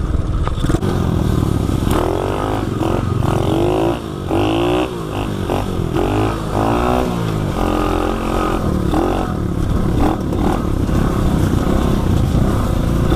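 Tao Tao 110cc pit bike's small single-cylinder engine revving up and down in quick throttle blips for several seconds in the middle, then running more steadily, as it is ridden slowly over rocks.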